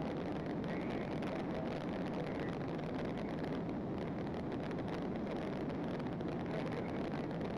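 Steady rush of vehicle noise at speed, engine and wind mixed into an even roar with no breaks or changes.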